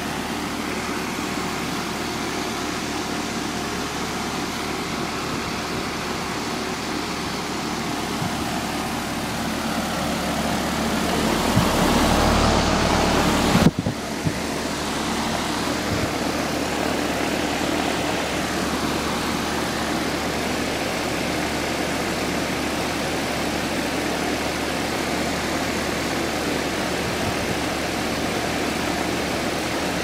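New Payne central air conditioner condenser unit running: its top fan blowing steadily with a low hum underneath. The sound swells for a couple of seconds and breaks off in one sharp knock about 14 seconds in, then the steady running carries on.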